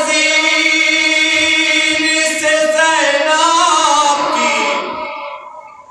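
A man's voice reciting a noha, the Shia mourning lament, unaccompanied into a microphone, holding one long sung note that bends in pitch about three seconds in and then fades away near the end.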